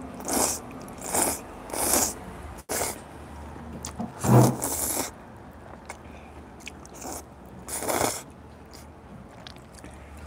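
Slurping of glass noodles (dangmyeon) in spicy tteokbokki sauce: a quick run of slurps through the first five seconds and one more about eight seconds in, with quieter chewing between.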